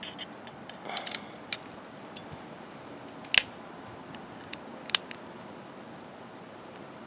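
Steel screwdriver tip clicking and scraping against the steel anti-rattle clips on a brake caliper bracket: scattered light ticks, with two sharper metal clinks a second and a half apart around the middle.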